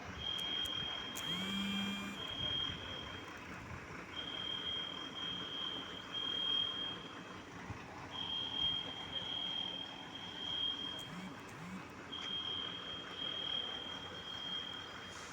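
Building alarm siren sounding as a repeating pattern of high, steady beeps in groups of three, a new group about every four seconds.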